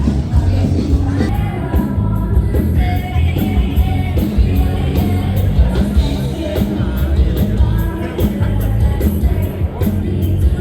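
Music with a singing voice over a heavy bass line.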